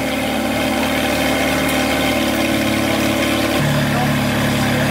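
Ferrari 430 Scuderia's V8 idling steadily, its note changing about two seconds in and again about three and a half seconds in.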